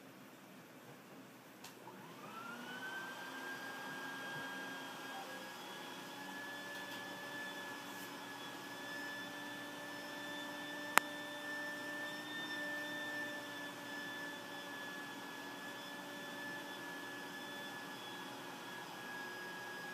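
A motor spins up about two seconds in and runs on with a steady high whine. A single sharp click comes about eleven seconds in.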